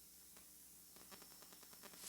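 Near silence: room tone with a steady faint hum, and a run of faint small clicks in the second half.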